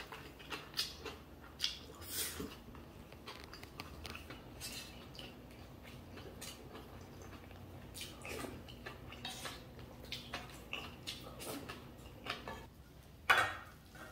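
Eating at the table: a metal spoon and chopsticks clicking against rice bowls and a stew pot, with chewing in between. One louder noise about thirteen seconds in.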